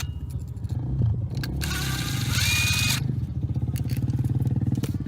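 An engine running steadily with a low, pulsing note. A burst of hiss with a brief high whistle comes through it from about a second and a half in to about three seconds.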